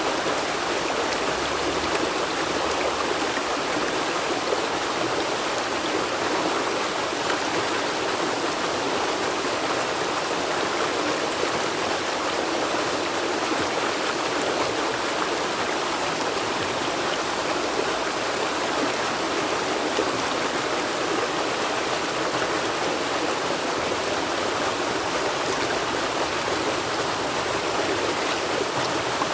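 River water flowing steadily over rocks, an even rushing and burbling that does not change.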